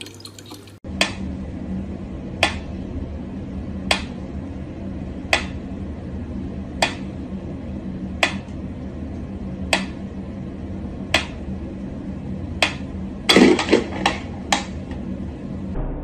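Mechanical pyramid metronome ticking at a slow tempo, one sharp click about every second and a half, over a steady low hum. Near the end a louder clattering burst breaks in among the ticks.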